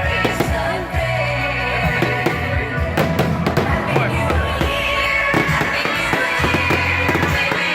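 Fireworks going off in a rapid run of bangs and crackles, densest about three seconds in, over loud music with a pulsing bass line.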